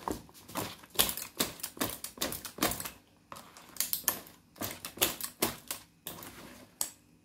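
Wire balloon whisk beating thick martabak manis batter in a plastic bowl, making rapid clicking and tapping strokes about three to four a second. The strokes pause briefly about three seconds in and again about six seconds in.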